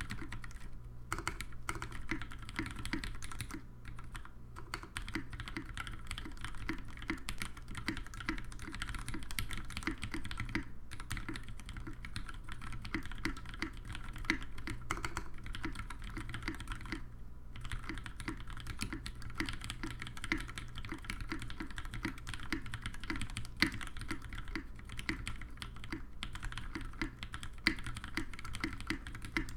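Steady typing on a Singa R1 WKL mechanical keyboard with retooled Cherry MX Black linear switches, lubed with Krytox, on a brass plate: a dense run of keystrokes broken by a few short pauses.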